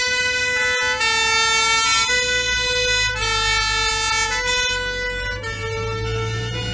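Two-tone siren of vintage fire engines, switching between a higher and a lower note about every half second. Under it is the low run of a truck engine, growing louder near the end as a fire engine drives past.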